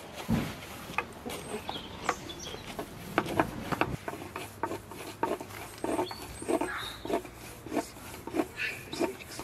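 Hands and a rolled flatbread tapping and rubbing against a wooden cutting board in quick, irregular strokes, with a few short high chirps over them.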